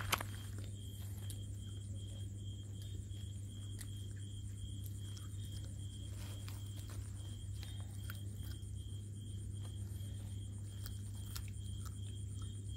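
Quiet outdoor evening ambience: a steady, high, pulsing trill and a low hum, with scattered soft clicks and rustles as puppies chew and shift about on a woven plastic sack. A sharp click comes right at the start.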